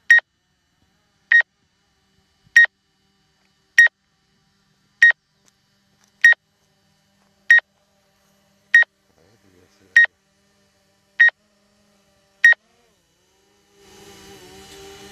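Short high-pitched beeps, evenly spaced about every 1.25 seconds with eleven in all, from a DJI Mavic 2 Zoom drone's remote controller while the drone carries out its automatic return-home landing. Near the end a steady hum and hiss comes in.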